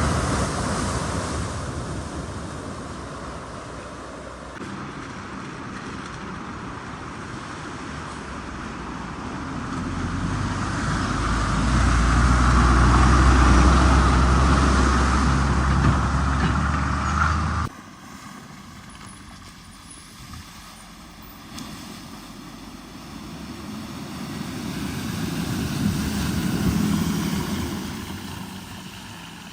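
Motor vehicle engines. One engine hum builds to a loud peak and cuts off suddenly a little past halfway. After it a quieter vehicle swells and fades near the end.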